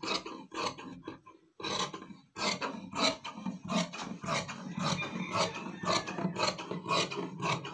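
Tailor's scissors cutting through heavy pant fabric: a quick run of crunching snips, about three to four a second, with a brief pause about two seconds in.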